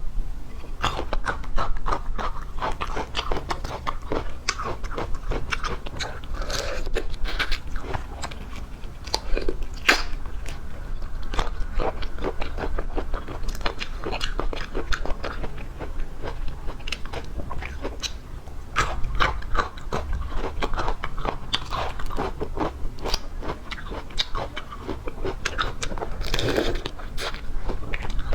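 Close-up eating of seafood: continual biting and crunchy chewing with many irregular crackles and clicks.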